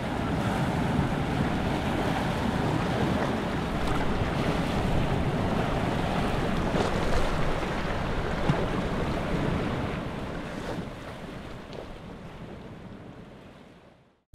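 Ocean surf washing in over a rocky shoreline, with wind buffeting the microphone. The sound fades out over the last few seconds.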